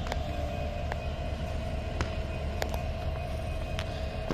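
Diesel-electric locomotive running slowly with a single coach: a steady low engine rumble with a steady hum over it, and a few sharp clicks at uneven intervals.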